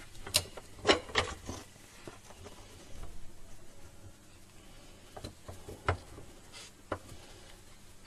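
Scattered clicks and knocks from a metal bench vise being worked by hand, as a wooden handle blank is repositioned in its jaws and the vise's sliding screw bar is turned to clamp it. The knocks are sharpest in the first second and a half, with a few more about five to seven seconds in.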